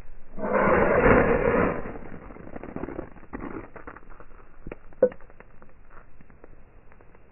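Knife spine scraped hard down a ferrocerium rod to throw sparks into a dry grass tinder bundle: one harsh scrape lasting over a second, followed by scattered small clicks and crackles, with one sharper click about five seconds in.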